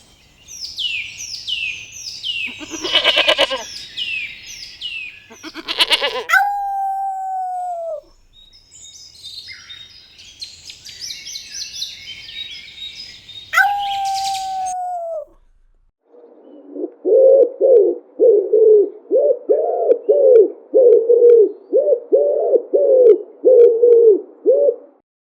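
Birds calling: quick falling high chirps and chatter, two single falling whistled notes, then a regular series of about a dozen short, lower calls near the end.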